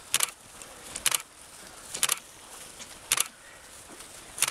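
Metallic jingling in short shakes, about one a second, five in all.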